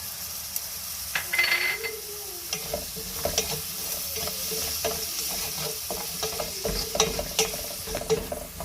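Chopped onion and garlic sizzling in hot oil in a pot while being stirred, the spoon scraping and clicking against the pot many times. A short whistle-like sound comes about a second in.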